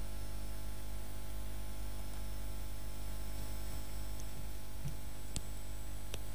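Steady low electrical hum with a faint hiss: the idle noise of a studio microphone and recording chain. A few faint clicks and a soft tap come in the last second and a half.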